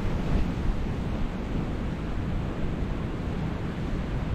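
Steady wash of ocean surf against a rocky shoreline, with wind rumbling on the microphone.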